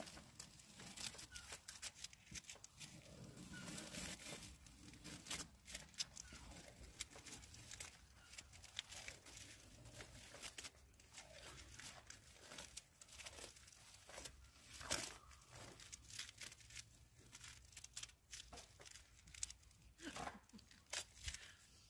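Masking tape being peeled off a freshly painted boat hull: faint, intermittent crackling and ripping as the tape comes away from the paint.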